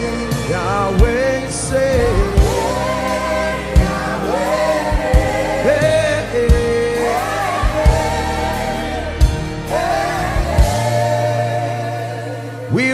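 Gospel worship music: a singing voice gliding through sustained notes over held chords, with a low drum hit about once a second.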